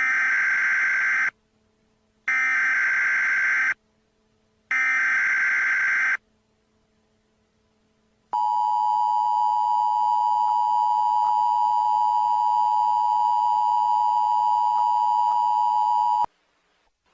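Emergency Alert System tones. First come three short bursts of SAME digital header data, each about a second and a half. After a pause, the two-tone attention signal holds steady for about eight seconds and cuts off sharply.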